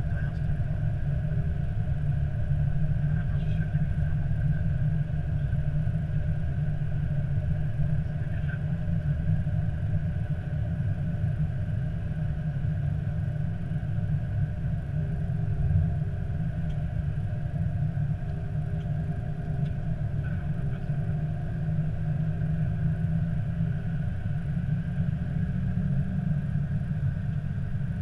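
Steady cockpit noise of an Airbus A320 taxiing: a constant low rumble from the idling engines and the rolling airframe, with a faint steady whine above it.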